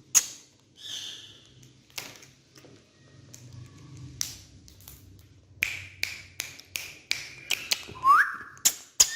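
A parrot making a series of sharp clicks and taps, with a thin steady whistle in the middle and a short upward-gliding whistle about a second before the end.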